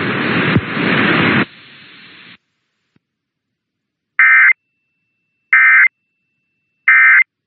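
Emergency Alert System end-of-message code: three short, identical warbling digital data bursts about a second apart. A loud hiss fills the first second and a half before silence.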